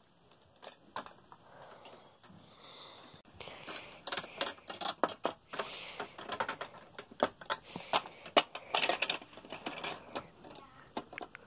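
Quick plastic clicks and rattles of a Lego Tyrannosaurus figure being handled and knocked against Lego bricks and fence pieces close to the microphone. Sparse at first, then busy and uneven from about three and a half seconds in.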